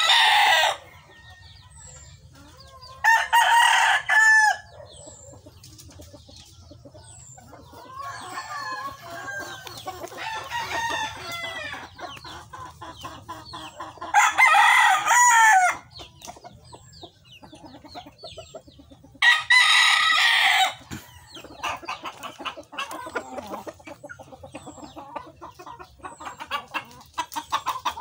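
A Bacolod line × Lemon Sweater gamecock crowing loudly three times, each crow about a second and a half long, with the end of an earlier crow at the very start. Softer clucking and chatter fill the gaps between crows.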